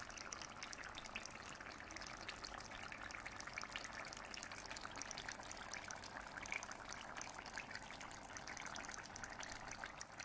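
Thick duck and potato curry simmering in a pan: faint bubbling and spitting, a steady scatter of small pops.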